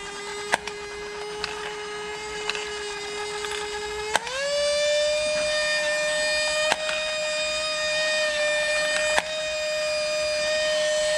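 Egg-laying chicken toy overvolted from a bench power supply: its small motor and gears whine in a steady high tone that steps up in pitch about four seconds in as the voltage is raised. A sharp click comes about every two and a half seconds as the egg-laying mechanism cycles.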